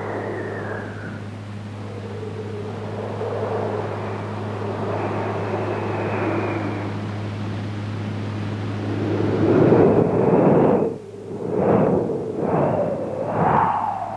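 Bora wind blowing hard: a steady rushing blast with a faint whistle and a low hum underneath. About ten seconds in the hum stops and the wind breaks into separate howling gusts that rise and fall roughly once a second.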